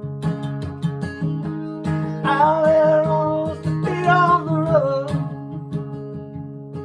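Acoustic guitar strummed in a steady rhythm through the outro of a folk-country song, with a melody line over it for a few seconds in the middle.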